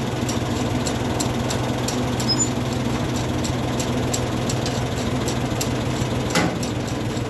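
1973 Ford 4000 tractor's three-cylinder engine idling steadily, with a light regular ticking about three times a second and a short sliding tone about six seconds in. It is kept running with the hydraulic lift raised so the hydraulic fluid level can be checked at the fill plug.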